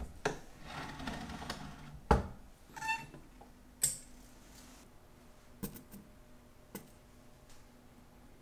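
Handling knocks and clicks from the parts of an Elma watch-cleaning machine as the basket holder is fitted and the mesh cleaning basket is taken off, with scraping in the first two seconds, the loudest knock about two seconds in, and a short ringing metallic clink about a second later.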